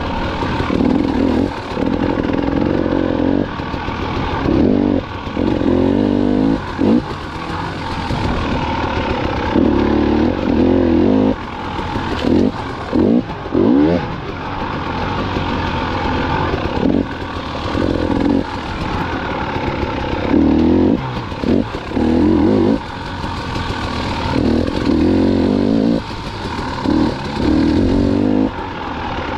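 2019 KTM 300 XC-W's 300 cc two-stroke single-cylinder engine revving up and down while the dirt bike is ridden, the throttle opened and shut every second or two, with quick rises and falls in revs about halfway through.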